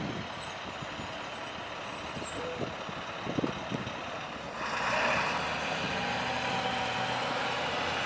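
Traffic moving slowly through a snow-covered intersection: engines and tyres on the snowy road. About halfway through, a passing vehicle gets louder with a steady engine hum.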